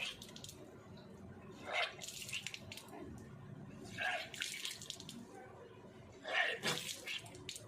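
A person retching and bringing up water three times, about two seconds apart, each retch followed by a splash of water: the vomiting stage of kunjal kriya, the yogic cleanse in which water is drunk and then brought back up.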